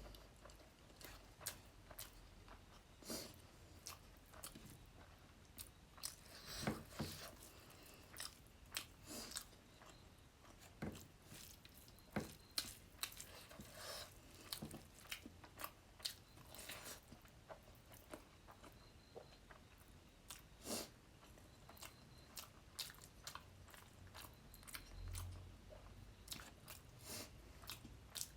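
A person chewing and biting food close to the microphone: soft, irregular crunches and mouth clicks, a few louder bites scattered through.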